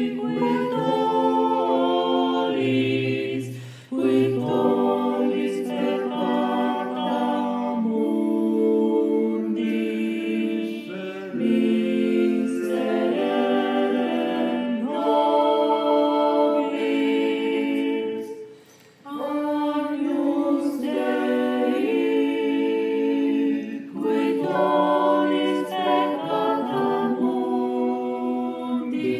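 Mixed-voice youth choir singing a cappella in held chords, assembled as a virtual choir from singers recorded separately at home. The sound dies away briefly twice, about four seconds in and again near nineteen seconds, before the voices come back in together.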